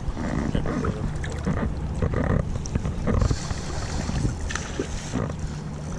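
Wind rumbling on a body-worn camera's microphone, with irregular rustling and light knocks from handling.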